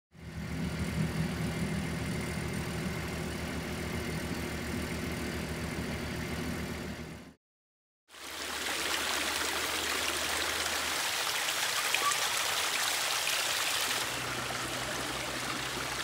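An engine running steadily, stopping abruptly after about seven seconds. After a brief silence comes a steady splashing rush of water from a backyard pond's waterfalls and boulder-lined stream.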